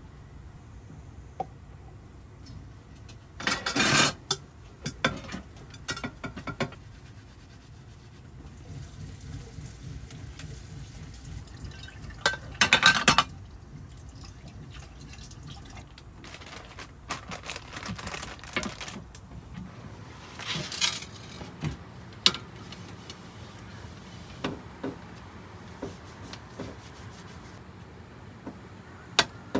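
Washing up at a small stainless-steel kitchen sink: tap water rushing in short loud spurts and a longer fainter run, with knocks and clinks of pans and dishes.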